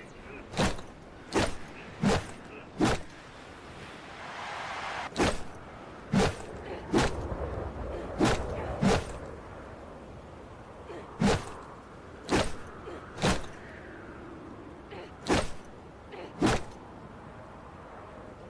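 Baseball bat sound effect: a series of about fourteen sharp hits, each with a brief ring-out, spaced irregularly from under a second to about two seconds apart.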